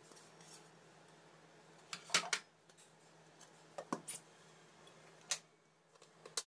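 A few short, light metallic clicks and knocks, about a second or two apart, as a lid is fitted onto the stainless-steel jar of an electric mixer-grinder; the motor is not running.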